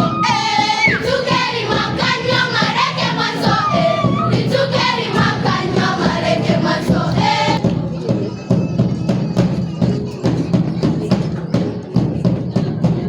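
Music: voices singing together over a steady beat.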